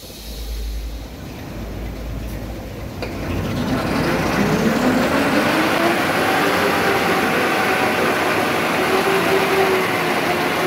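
Colored toilet paper machine speeding up: its motor hum rises in pitch over a few seconds, about three seconds in, then holds steady as the machine runs at speed with a steady mechanical whir from its rollers.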